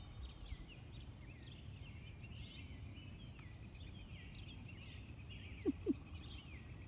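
Outdoor spring ambience with small birds chirping and calling continuously, over a low steady rumble; two short, low sounds come close together near the end.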